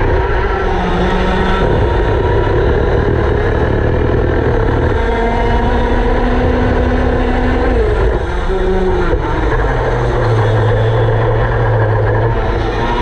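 Go-kart engines at race speed, heard from on board a kart in close company with other karts; the engine note rises and falls as the karts slow for corners and accelerate out, over a steady rumble.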